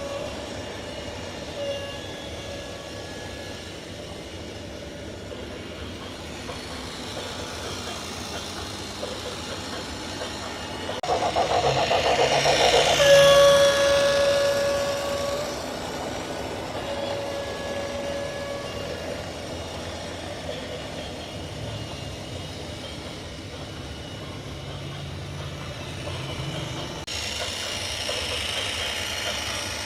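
A horn sounding in several long, steady blasts over engine and traffic noise, with a louder rushing noise building and fading about eleven to fourteen seconds in.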